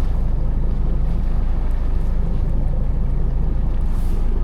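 Fishing boat's engine running steadily, a loud low hum.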